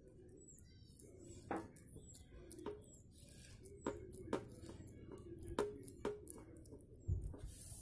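Hands patting and pressing a cake of slate pencil powder on a plate: a series of soft taps at irregular intervals, about six in all, with faint high chirps in the background.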